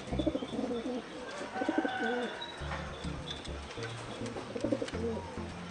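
Racing pigeons cooing repeatedly, a series of low coos.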